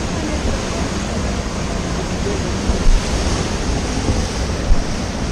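Steady rush of river whitewater through a rapid, with wind buffeting the microphone. There are two brief low thumps, about three seconds and about four and a half seconds in.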